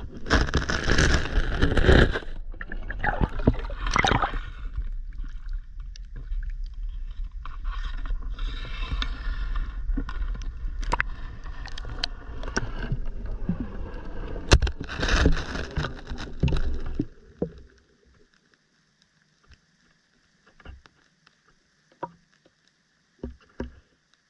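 Underwater GoPro being moved and repositioned on the pond bottom: water rushing and sloshing, with scrapes and knocks against the camera. It stops about seventeen seconds in, leaving only a few faint ticks.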